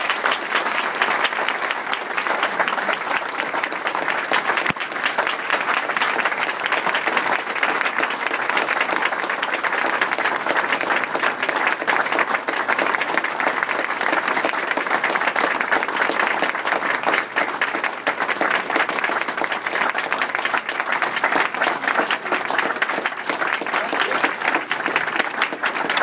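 Small crowd applauding steadily, many hands clapping at once in a sustained round of applause.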